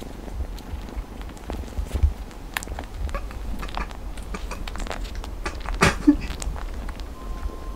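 Cats at close range: scattered soft clicks and rustling, with a short low cat call about six seconds in. A music tone comes in near the end.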